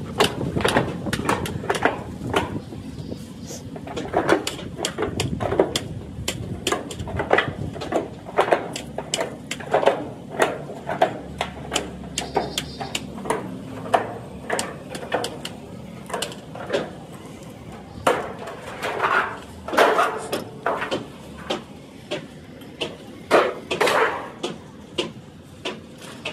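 Irregular hammering in a bus-body workshop: sharp single knocks about one or two a second, with a little ringing after each blow.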